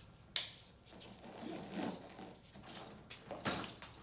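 Nylon webbing straps on a rolled-up Reeves stretcher being pulled through their buckles and cinched tight, with rustling of the stretcher's fabric. A sharp snap comes a moment in, the loudest sound, and another strap pull comes near the end.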